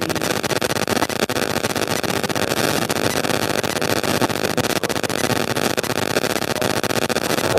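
Steady, loud crackling static filling the whole sound range, a recording-noise fault with no clear speech standing out of it.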